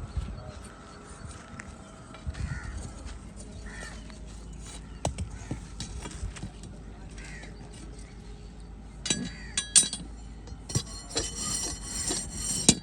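Sharp clinks and knocks of hard objects, ringing briefly. A few come singly in the first half, then a dense run of clinking near the end, over a low steady background.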